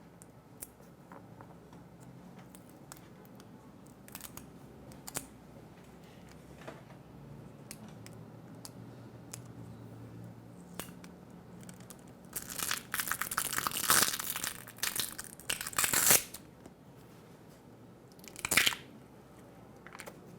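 Smartphone battery being pulled free of its adhesive: scattered small clicks and scrapes, then about four seconds of loud crackling, tearing and crinkling, and one more short tearing sound near the end.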